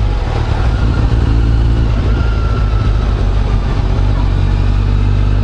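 Kawasaki Ninja 1000's inline-four engine running under the rider, first as an uneven rumble with wind rush as it comes off the throttle and slows, then settling to a steady, lower-revving run about four seconds in.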